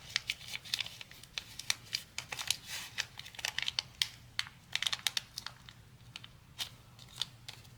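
Irregular small clicks and crinkles of plastic syringe-kit parts and their packaging being handled, dense at first and thinning out after about six seconds.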